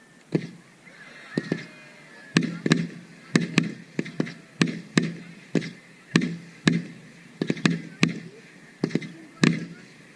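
Fireworks display: aerial shells bursting one after another, about two sharp bangs a second, each with a short echoing tail.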